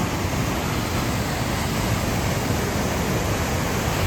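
Waterfall and turbulent river water rushing in a loud, steady, even roar.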